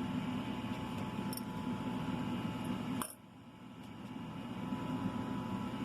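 Steady background hum, like a fan or air conditioner, with a faint metallic click about three seconds in; right after the click the hum drops away sharply and slowly builds back up.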